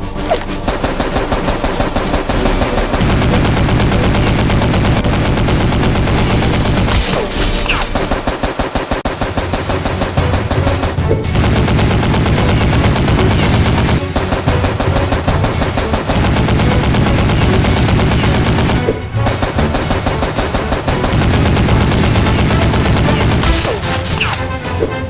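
Automatic machine-gun fire sound effects in long rapid bursts, with a few brief breaks, over background music.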